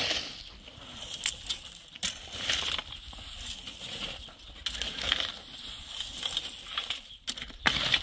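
Shovels scraping and digging into stony soil, with irregular scrapes and knocks of the metal blades against earth and stones.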